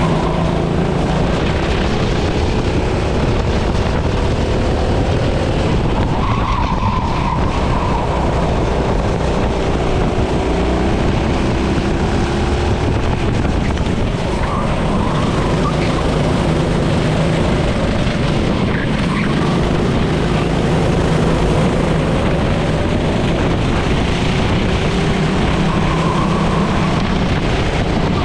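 Race kart engine running hard and continuously, its pitch rising and falling again and again as it accelerates and backs off, over a steady rush of noise.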